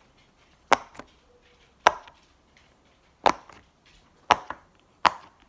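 Silicone pop-it fidget toy being pressed bubble by bubble: five sharp pops, about one a second, each followed by a faint second click.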